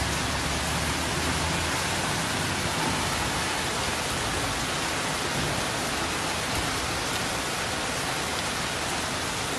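Steady hiss of heavy rain together with floodwater rushing down a flooded street.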